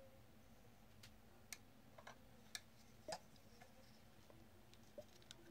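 Faint, irregular plastic clicks and taps, about seven, spaced unevenly, from a handheld key-programmer tool and a car remote key being handled, with buttons being pressed.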